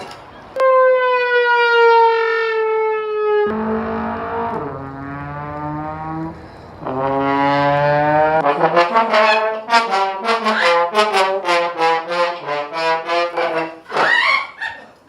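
Brass instrument sound effects, trombone-like: a long held note that slowly falls in pitch, then lower sliding notes, then a run of quick short notes.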